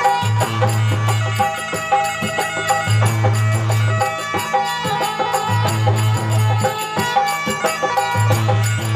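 Instrumental passage of folk devotional bhajan music: an electronic keyboard (organ) melody over a low held bass note that recurs about every two and a half seconds, with hand-drum percussion.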